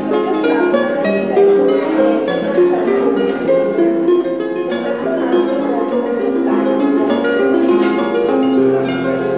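Background music: a melody of quick plucked-string notes.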